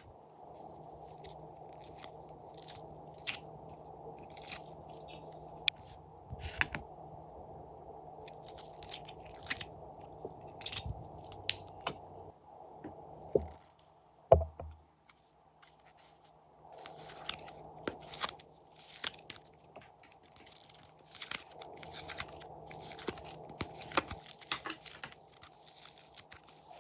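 Slime being kneaded and mixed by hand, crackling and popping in irregular sharp clicks, with one louder knock about halfway through.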